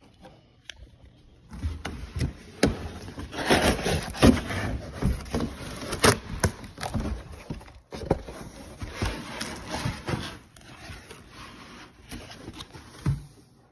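Cardboard box being opened by hand: flaps pulled back and cardboard and packing scraping and rubbing, with scattered sharp clicks and knocks. It starts about a second and a half in, is busiest a few seconds in, and ends with a single knock.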